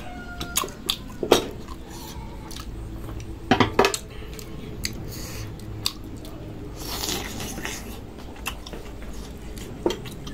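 Someone eating: utensils clinking and scraping against a bowl, with chewing, heard as scattered clicks and knocks. A louder cluster of clinks comes about three and a half seconds in.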